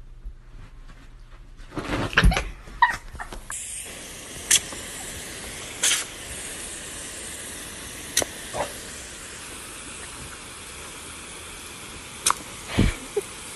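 A garden hose spray nozzle hisses steadily from a few seconds in. Several short, sharp sounds stand out over the spray, and there is a loud burst of knocks and clatter just before the hiss starts.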